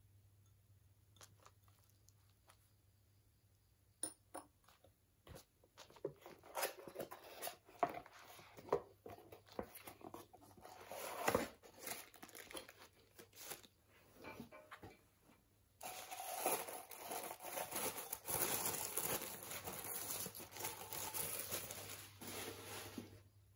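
Cardboard box being opened and handled, with scattered taps, scrapes and rustles after a few quiet seconds. From about two-thirds through comes steady crinkling of the white packing wrap as a ribbed glass is unwrapped.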